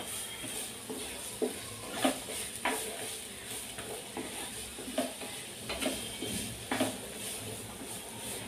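Wooden spatula stirring thick-cut onion pieces in a nonstick frying pan, with irregular scrapes and taps against the pan over a faint sizzle as the onions soften in a little oil.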